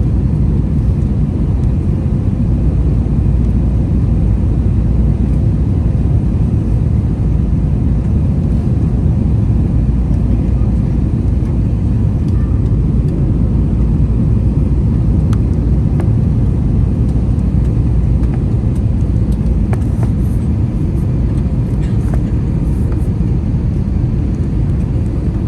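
Steady low cabin rumble of an Airbus A321 with IAE V2500 engines, engine and airflow noise heard from a window seat, with a few faint clicks near the end.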